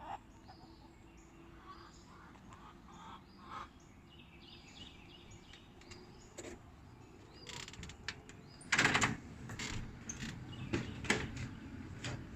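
Birds chirping in short repeated calls, then about nine seconds in a loud burst of noise followed by several sharp cracks and knocks.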